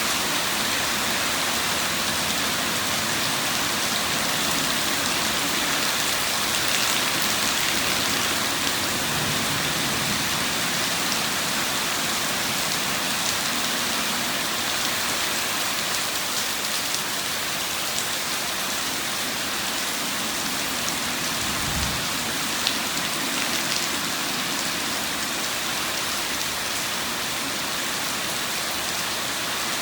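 Steady rain falling, an even hiss of drops, with one brief low thump about two-thirds of the way through.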